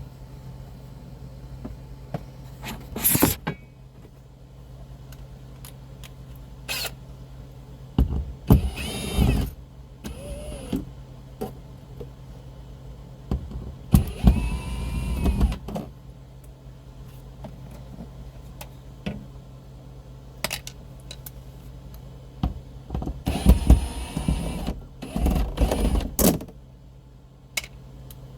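Cordless drill/driver running in several short bursts, its motor whine rising and falling as it spins up and slows, while screws are backed out of a headliner track. A steady low hum sits underneath, with small clicks between the bursts.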